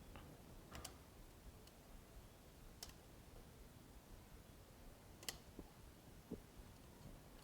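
Near silence with four faint, sharp clicks spread a second or two apart.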